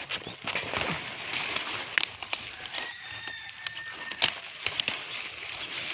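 Curly mustard-green leaves being snapped off their stalks by hand: rustling of the big leaves and sharp snaps, the loudest about two seconds in and just after four seconds. A brief high steady tone sounds about three seconds in.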